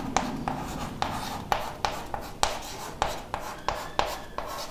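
Chalk writing on a chalkboard: a run of short taps and scratches, about three a second, as a word is chalked up letter by letter.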